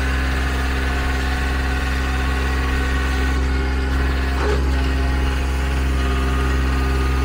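Kubota L3800HST compact tractor's three-cylinder diesel engine running steadily at a constant speed.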